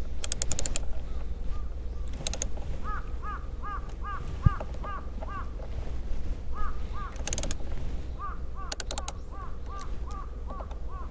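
Ratchet of a socket wrench clicking in four short bursts as the T30 Torx screws on a Daihatsu Copen's A-pillar roof-lock bracket are loosened, with a single dull knock about halfway through. Behind it a bird calls over and over, a few short calls a second.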